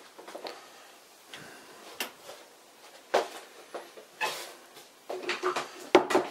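Handling noise of someone moving through a small storage room: scattered knocks, clicks and rustles at irregular moments, with a quicker run of sharper clicks near the end.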